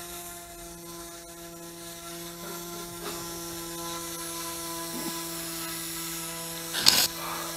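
A steady mechanical hum, one low pitch with a stack of overtones, unbroken throughout, with a brief loud knock or clatter near the end.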